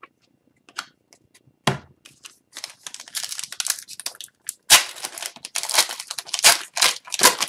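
Plastic wrapper of a hockey card pack being torn open and crinkled by hand: a couple of light clicks, then crackling and tearing from about two and a half seconds in, with the loudest crackles near the end.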